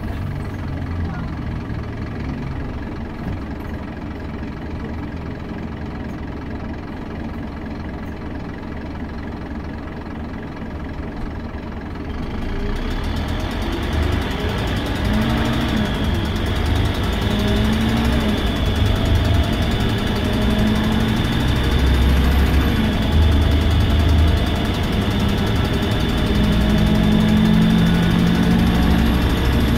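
Scania K270UB city bus's five-cylinder diesel engine heard from inside the bus, running steadily with a heavy beat that sounds like a Lanz Bulldog. About twelve seconds in it grows louder and a high whine joins it. The uploader puts the noise down to an exhaust manifold leak or bad valves.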